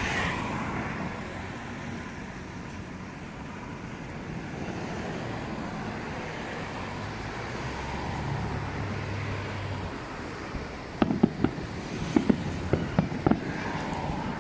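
Fireworks display: a steady low rumble with wind on the microphone, then, about eleven seconds in, a quick run of sharp pops and bangs.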